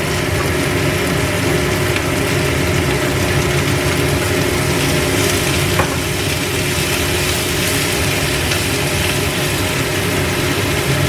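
White radish (daikon) sticks sizzling as they stir-fry in a hot, oiled frying pan, over a steady mechanical hum. A single light click comes about halfway through.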